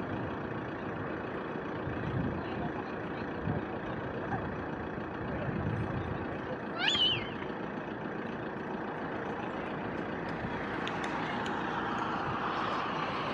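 Steady outdoor background noise with faint distant voices. About seven seconds in there is one short, high, rising and wavering cry from a voice.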